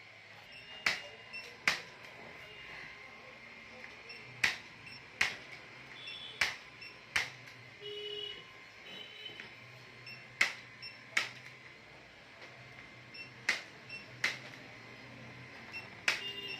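Handheld chiropractic impulse adjusting gun firing sharp clicks, mostly in pairs under a second apart, with a new pair about every three seconds as it is moved along the back.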